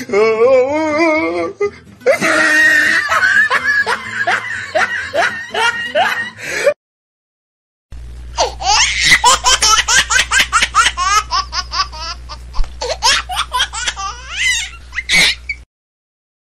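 People laughing hard in rapid, repeated bursts. The laughter breaks off for about a second around seven seconds in, then resumes over a steady low hum and stops just before the end.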